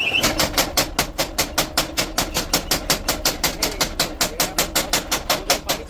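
Rapid, evenly spaced hammer blows on steel, about six or seven a second, the steady rhythm of blade forging.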